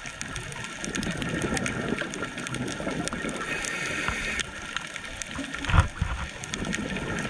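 A scuba diver's breathing heard underwater: a gurgling rush of exhaled bubbles, a short hiss from the regulator about halfway through, and a dull thump near the end.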